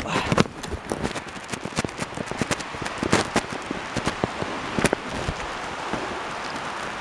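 Heavy rain pouring down, with many sharp taps of drops striking close to the microphone that thin out near the end.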